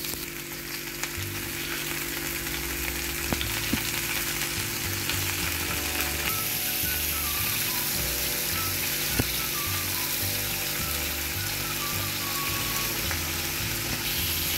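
Liver kebab skewers with capsicum and onion frying in oil on aluminium foil on a hot tawa, a steady sizzle with a few faint clicks as the skewers are set down.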